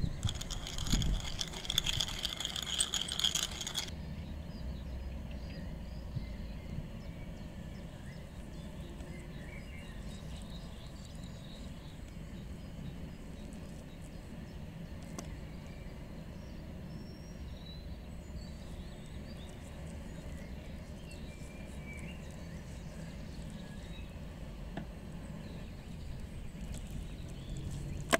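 Hand pepper mill grinding black pepper, a crackling grind that stops about four seconds in. After that only a low steady outdoor background with faint scattered chirps.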